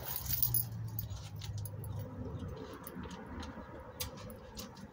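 Quiet scattered clinks and small rattles over a low steady hum that is strongest in the first second and a half.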